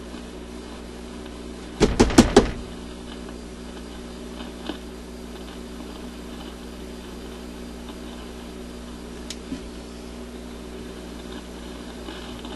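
An old suitcase record player's amplifier humming steadily through its speaker as it warms up, with a burst of loud scratchy crackling about two seconds in and a few faint clicks later. The scratchy noise is an unexplained fault.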